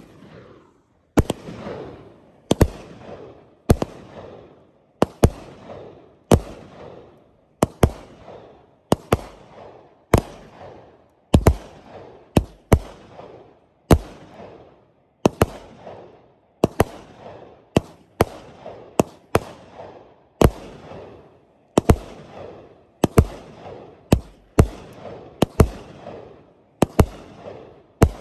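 Outlaw Pyro 'Sir Vegas' 500-gram, 30-shot firework cake firing its shots one after another: a sharp bang about every second, now and then two in quick succession, each trailing off briefly.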